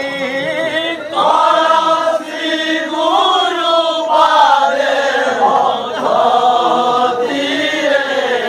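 A group of men chanting a devotional kirtan together, their voices rising and falling in a sung melody; the chorus comes in louder and fuller about a second in.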